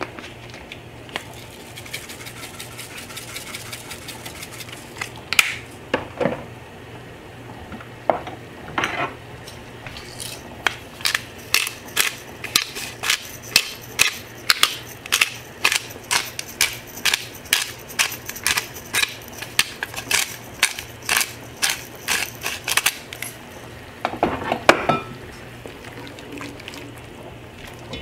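Pepper mill being twisted, a run of sharp clicks about two a second that starts about ten seconds in and stops near the end. A few separate scrapes and knocks of a silicone spatula against an enamel pot come before and after it.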